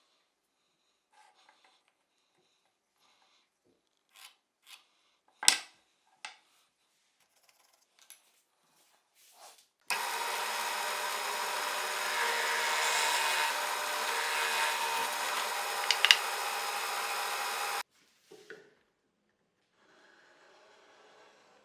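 Workshop handling sounds: scattered clicks and light knocks of wood and tools, with one sharp knock about five seconds in. Then a power tool runs steadily for about eight seconds, starting and stopping abruptly.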